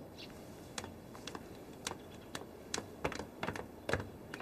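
Footsteps on a hard floor, people walking away: sharp, irregular taps, about two to three a second.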